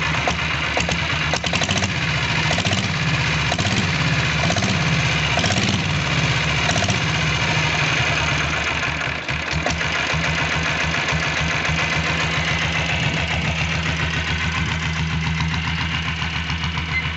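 Royal Enfield Bullet motorcycle with a converted single-cylinder diesel engine idling steadily, its firing pulses coming through as an even, rapid chug.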